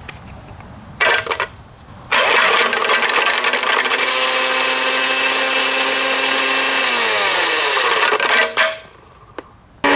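Hamilton Beach 7-speed Blendmaster blender motor running with an object in its open plastic jar. A short burst comes about a second in, then a steady high whine from about two seconds. Its pitch slides down after about seven seconds and it stops near the end, then starts again at a higher pitch just before the end.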